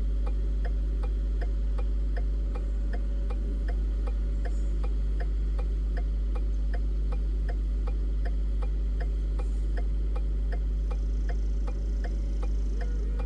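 A steady low engine hum with an even ticking, about two to three ticks a second.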